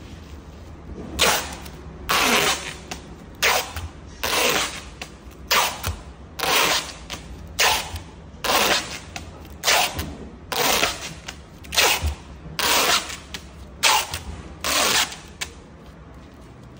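Packing tape being pulled off its roll in about fourteen quick screeching pulls, roughly one a second, as it is run across a film-wrapped crate.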